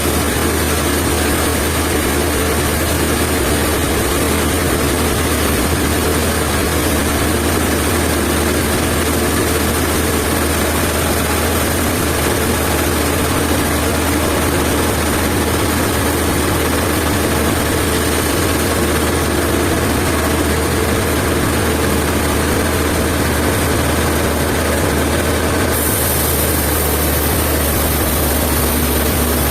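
Sawmill machinery running with a loud, steady, unchanging hum.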